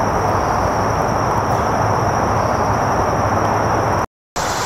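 Steady rushing background noise with a low hum and a faint high whine. It cuts out for a moment near the end.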